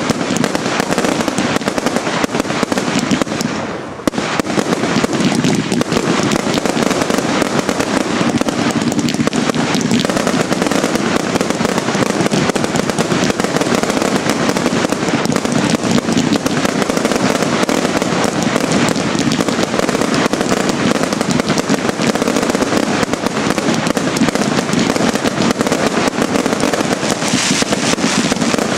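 Fireworks finale barrage: aerial shells and comets launching and bursting in rapid succession, so densely that the bangs merge into one continuous crackling rattle. A brief lull comes about four seconds in before the barrage resumes.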